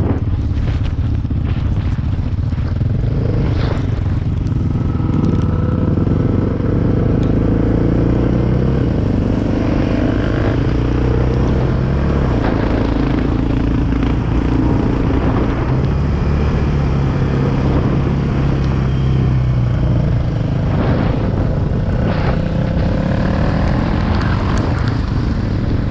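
Quad bike engine running under way, its note stepping up and down in pitch several times.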